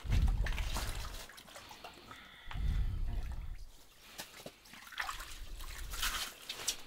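Water sloshing and dripping in an ice-fishing hole as a lake trout is hauled up through it, in two surges, at the start and about two and a half seconds in, with scattered knocks and scrapes between.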